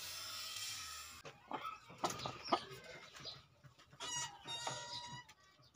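Hens clucking at a plastic feeder tray, with sharp taps of beaks pecking grain off the plastic and one longer drawn-out cluck near the end. It opens with about a second of steady hiss that cuts off abruptly.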